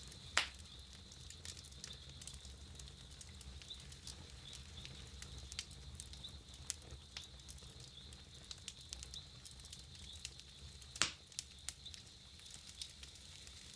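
Campfire crackling with scattered small clicks and two louder pops, one about half a second in and one near the end, over a low steady rumble of the burning.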